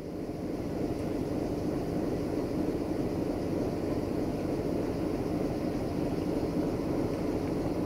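LDE2150 diesel-electric shunting locomotive running as it slowly moves a string of covered hopper wagons: a steady drone that fades in over the first second.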